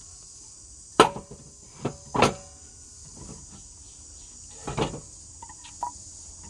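Sawn wooden blocks knocking against each other and the steel rollers of a roller table as they are lifted and moved: three sharp knocks in the first couple of seconds and one about five seconds in. Insects keep up a steady high buzz underneath.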